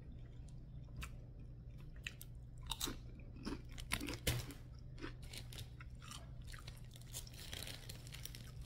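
Crunching and chewing of spicy lime-flavoured chips close to the microphone, a scatter of short crisp crunches, over a steady low hum.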